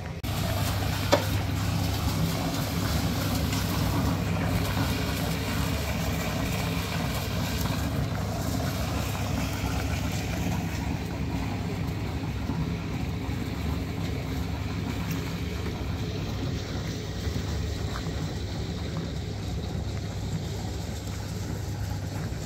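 A motor running steadily: a low, even hum under a broad hiss, with a single sharp knock about a second in.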